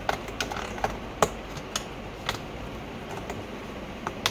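Plastic felt-tip marker pens clicking against each other and their plastic case as they are picked through: a string of sharp, irregular clicks, the loudest about a second in and just before the end.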